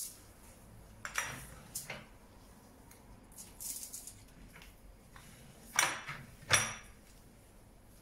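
A cloth wiping a countertop, with several short knocks and clinks as glass jars and containers are moved and set down on it; the two loudest clinks, with a brief high ring, come about two thirds of the way in.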